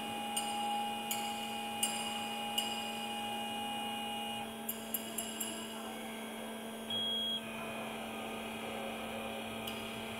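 CNC hot-wire foam cutting machine running with a steady electrical hum while its wire cuts into a foam block. A higher whine stops about four and a half seconds in, there are scattered light clicks, and a short high beep sounds about seven seconds in.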